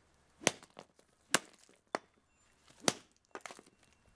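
Golf club striking the shaded-pole motor of a smashed plastic exhaust fan on concrete: four sharp hits under a second apart, then a few lighter knocks.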